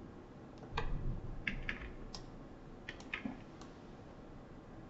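Faint, irregular clicks of a computer keyboard and mouse being worked, about seven in all.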